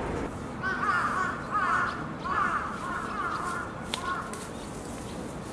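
A crow cawing: a run of four harsh caws about three-quarters of a second apart, then a fainter fifth.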